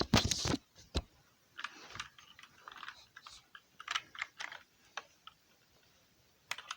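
Plastic clicks and scrapes from working on a GK61 mechanical keyboard while pulling a switch out of its hot-swap socket. A loud cluster of sharp clicks comes at the start, then scattered lighter clicks and scrapes.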